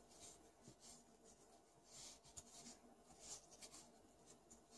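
Near silence, with faint, scattered soft scratchy rustles of a metal crochet hook drawing cotton yarn through stitches.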